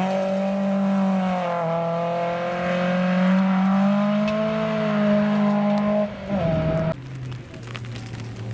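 Volvo 240 rally car's engine running hard at high revs as it pulls away on gravel, the pitch wavering, with a brief drop and pick-up about six seconds in, as at a gear change. Near the end it gives way abruptly to a second rally car's engine, a Daihatsu's, lower and quieter.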